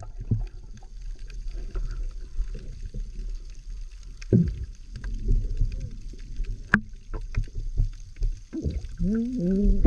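Muffled underwater noise from a camera held in shallow sea water: a steady low rumble of water moving around the housing, with scattered faint clicks and one sharp click about two-thirds of the way through. Near the end comes a short muffled tone that rises and falls.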